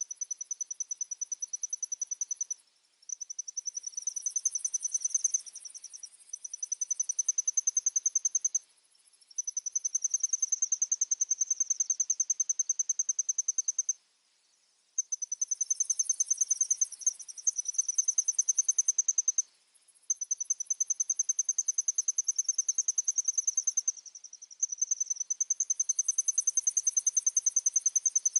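Insects trilling: a rapid, high-pitched pulsing trill that runs in long stretches of several seconds, broken by short pauses, with a fainter, even higher trill joining in now and then.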